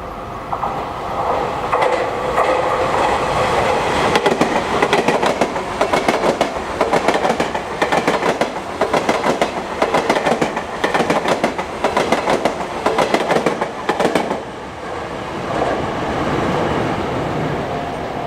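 Sotetsu Line train passing close by, its wheels clacking rhythmically over the rail joints for about ten seconds. The clatter stops abruptly near the end, leaving a quieter running rumble.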